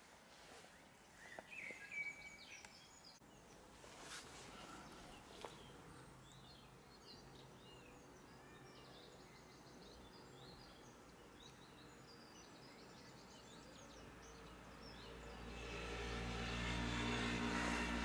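Several songbirds singing and calling, a mix of short chirps and trills, faint overall. About fifteen seconds in, music fades in and becomes the loudest sound near the end.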